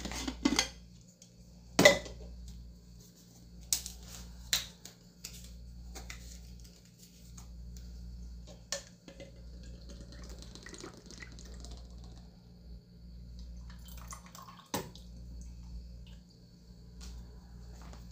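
A drinking glass, bottles and a can being handled on a countertop: scattered sharp clinks and knocks, with a drink poured into the glass around the middle.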